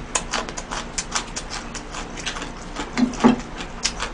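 Close-miked chewing with a full mouth: irregular wet smacking clicks several times a second, and a brief muffled hum through the food about three seconds in.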